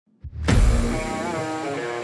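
Dramatic background music that opens with a heavy low hit about half a second in, then sustained chords.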